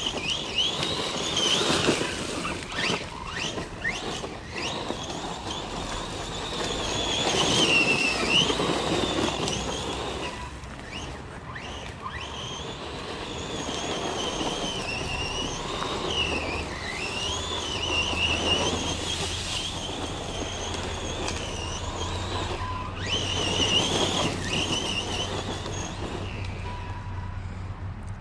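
Losi Lasernut RC truck's electric motor whining, its pitch rising and falling again and again with the throttle, over the noise of the truck driving.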